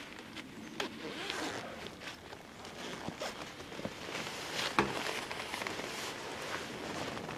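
Nylon fabric and mesh bug net of a DD travel bivy hammock rustling and scraping as a person climbs into it and settles lying down, with a single sharp knock a little under five seconds in.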